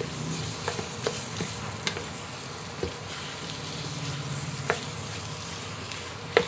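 Diced tofu sizzling steadily in a nonstick frying pan as it is stirred with a wooden spatula, with a few sharp clicks of the spatula against the pan.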